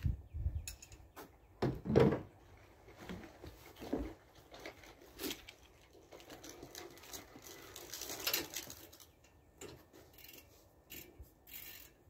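Irregular metallic clinks and knocks of hand tools, a socket and ratchet, working on the front brake caliper bracket bolts, with no steady rhythm. The loudest knocks come about two seconds in and again about eight seconds in.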